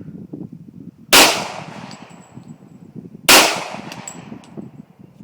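Semi-automatic pistol shots, slow and deliberate: two sharp reports about two seconds apart, each ringing out briefly, and a third right at the end.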